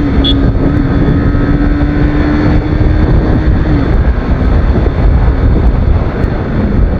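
TVS Apache RR 310's 312 cc single-cylinder engine running at speed under heavy wind and road noise. Its steady note dips and fades out about four seconds in.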